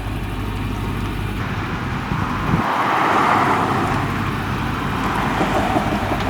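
Range Rover P38 engine running at a steady idle, with a rushing noise that swells and fades a few seconds in.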